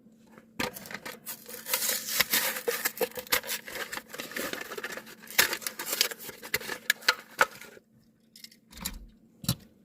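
A Hot Wheels blister pack being opened by hand: a dense run of crackling and tearing of plastic and card for about seven seconds, then a couple of soft bumps near the end.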